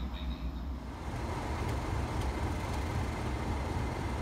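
Faint birdsong over a low rumble for about the first second. Then the engines of a pair of Class 37 diesel locomotives, English Electric V12s, run steadily: a low rumble with a thin steady whine over it.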